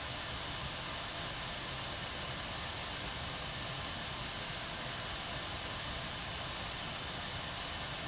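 Kettle at a rolling boil: a steady rushing hiss with a low rumble underneath, without any whistle.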